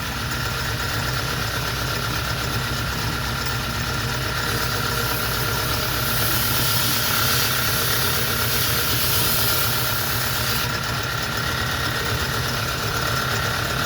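Belt grinder running steadily with a hum. From about four and a half to about eleven seconds in, it makes a hiss as the steel edge of a bill hook is ground on a coarse 80-grit slack belt.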